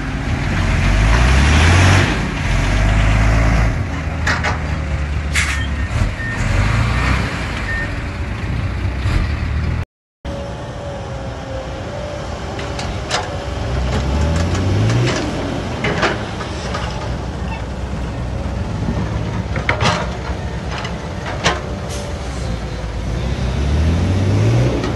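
Diesel dump truck engine revving hard with its wheels stuck in mud. Then a Caterpillar 312B excavator's diesel engine runs, its revs rising each time the hydraulics take load as it digs and swings, with sharp knocks and clanks from the bucket and soil.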